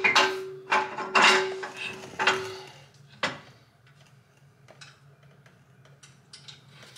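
Aluminum skid plate clanking against the underside of the Jeep as it is held up and fitted by hand: a quick run of metallic clanks over a steady hum in the first three seconds, one sharp knock about three seconds in, then faint light ticks.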